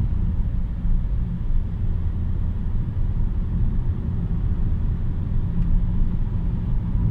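Steady low rumble of a car being driven, heard from inside the cabin, with tyre noise from a rain-soaked road.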